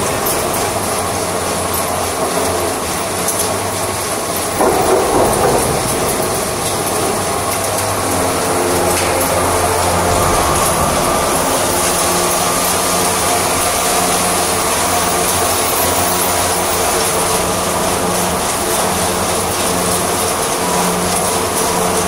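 Twin-shaft shredder running under load, its counter-rotating blade shafts chewing up waste woven polypropylene bags: a steady motor hum under continuous rattling clatter, with a louder surge about four and a half seconds in.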